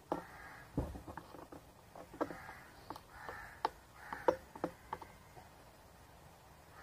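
Irregular sharp clicks and light knocks, about eight in all, the loudest about four seconds in, from handling a paint tin and tools before brushing on primer. Faint crow caws in the background.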